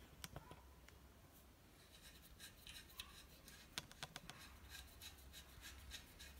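Faint clicks and light scrapes of an open-ended spanner being fitted to and worked on the front axle nut of an electric bike's hub motor, the sharpest click nearly four seconds in.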